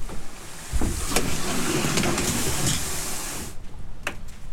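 Plastic kayak hull dragged over sand: a steady scraping hiss that starts just under a second in and stops suddenly about three and a half seconds in, followed by a single click.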